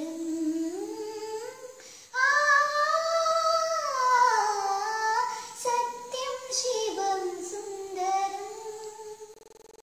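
A young girl singing alone, unaccompanied, holding long notes that slide up and down in pitch. Her phrase gets louder about two seconds in, and the voice stops near the end.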